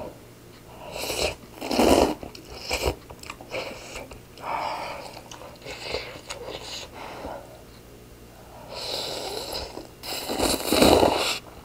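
A person slurping rice noodles in spicy broth and chewing, with loud slurps about a second in and again near the end.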